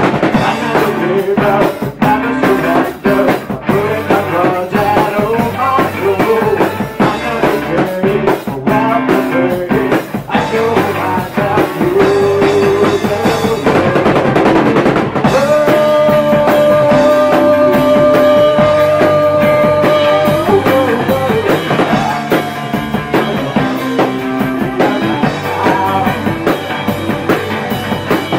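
Hard-rock band playing loudly: drum kit, electric guitars (an Epiphone Les Paul and a Fender Stratocaster) and a Yamaha bass guitar. A lead line holds one long note for about five seconds a little past the middle.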